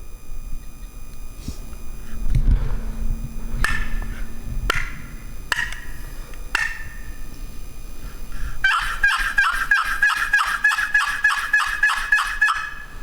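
Loud bird-like calls: four separate calls a second or so apart, each falling in pitch, then, near the end, a fast, even run of about twenty calls at some five a second. A low rumble sounds about two seconds in.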